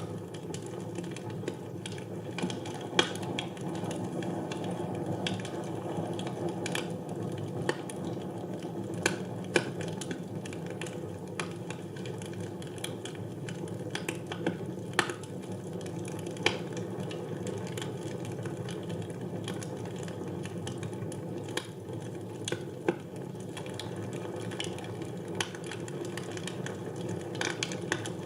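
Wood fire burning in a fireplace: a steady low rush of flames with irregular sharp crackles and pops from the logs.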